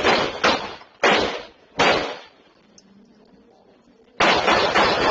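Gunshots picked up by a doorbell camera's microphone. Four sharp shots come in the first two seconds, spaced further apart each time, then a pause of about two seconds, then another quick string of shots near the end.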